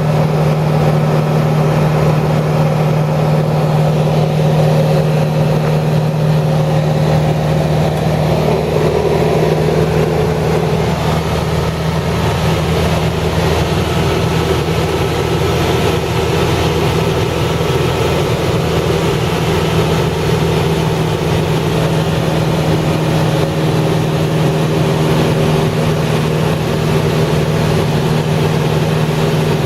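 A steady mechanical drone, like an engine running, with a constant low hum that does not change.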